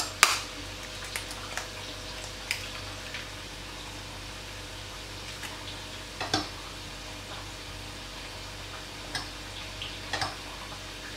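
A metal fork and a broken eggshell tapping and clicking against a small bowl while the eye is picked out of a cracked egg. There is a sharp click just after the start, then a few scattered light taps, over a steady low background hum.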